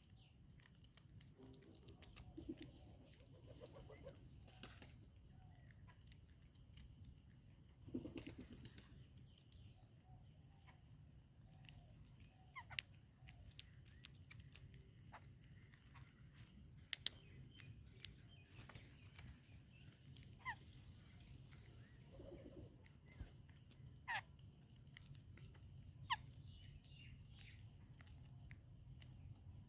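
Faint outdoor ambience with scattered short bird chirps and clicks over a steady high-pitched hum.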